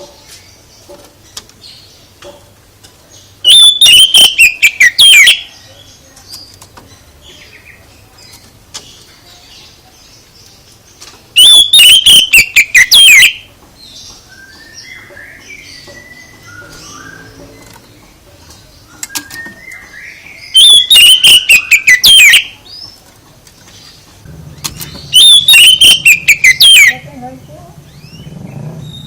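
Songbird song in four loud bursts of about two seconds each. Each burst is a fast run of notes sliding down in pitch. Softer chirps fill the gaps between bursts.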